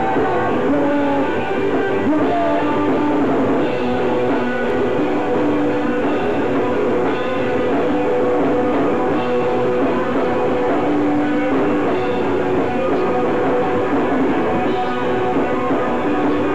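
Live rock band playing electric guitars and drums loudly and continuously.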